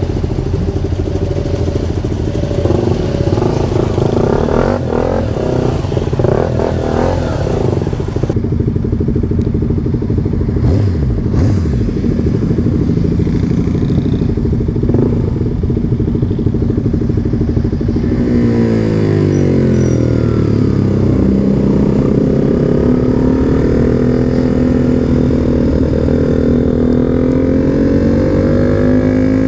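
Motorcycle engines running as a group of bikes rides off. In the last third, the engine pitch falls and then climbs steadily.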